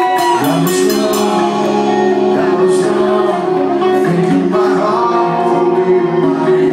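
Live rock band playing: sustained electric guitar chords over bass and drums, with cymbal strikes and a man singing at times.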